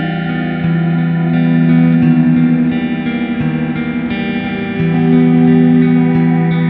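Background music: guitar-led, with long held notes that shift every second or so.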